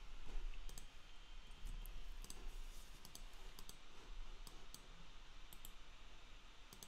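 Faint computer mouse clicks, about nine spread irregularly over several seconds, over a low steady hum.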